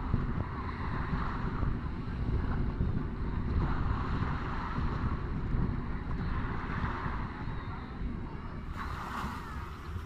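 Small waves lapping and washing on a sandy shore, the wash swelling every few seconds, with wind rumbling on the microphone.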